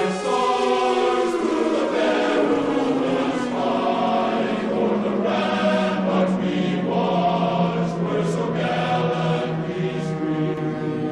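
Slow choral music, the closing national anthem, with a low tone sliding down in pitch over about five seconds and then holding as a deep drone under the voices.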